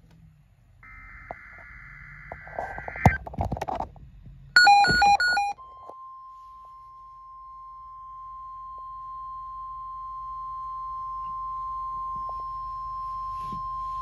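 Motorola weather radio playing the NOAA Weather Radio weekly test. A burst of warbling digital header tones comes first, then a few loud quick alert beeps from the radio itself. Then the steady 1050 Hz alarm tone is held for about eight seconds, the test of the weather radio alarm system.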